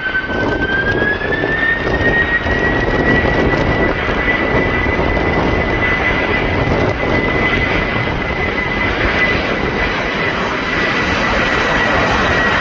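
Airplane engine running loud: a broad roar with a high whine that rises in pitch over the first couple of seconds, then holds steady.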